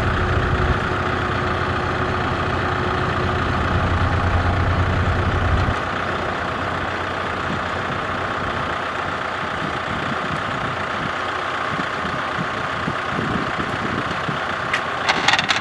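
Tractor diesel engine idling steadily. Its deep low rumble drops away about six seconds in, leaving a lighter steady hum. A few sharp metallic clinks near the end come from a chain being wrapped onto the tractor's muddy rear tyre.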